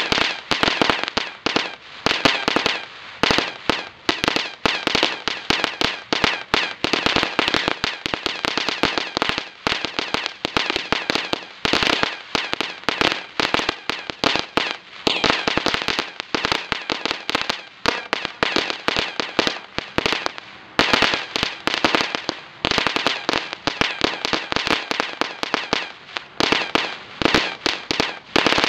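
Epic Fireworks Crazy Crickets ground firework burning, giving off a rapid, dense gold crackle over a hiss that keeps going, with a few short lulls.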